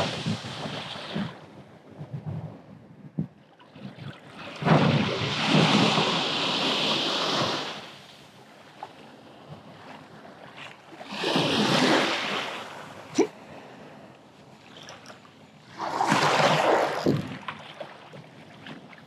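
Small surf waves washing up and sliding back over a sand beach: three rushing surges several seconds apart, with wind on the microphone. A single sharp click about thirteen seconds in.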